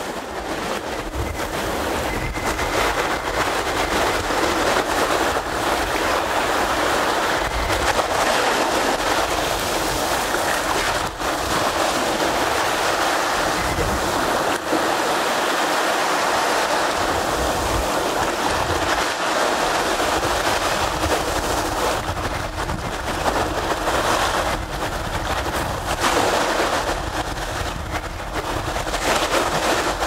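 Small Baltic Sea waves breaking and washing up a sandy beach: a continuous surf wash that swells and eases as each wave comes in.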